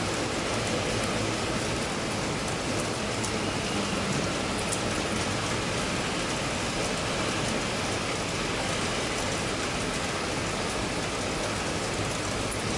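Steady rain falling on stone pavement, an even hiss with a few scattered drop ticks.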